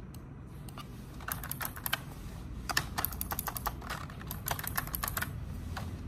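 Typing on a computer keyboard: irregular runs of quick key clicks starting about a second in and stopping shortly before the end, over a low steady room hum.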